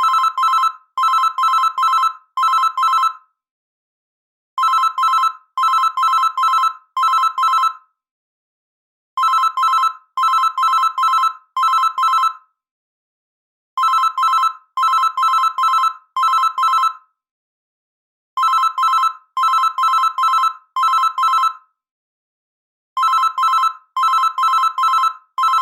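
Synthesized Morse-code ringtone spelling M-O-M: rapid beeps switching between two high musical notes, C6 and E6, each dash made of three quick pulses, with a slight reverb. Each ring lasts about three seconds, then stops, and the ring repeats about every four and a half seconds.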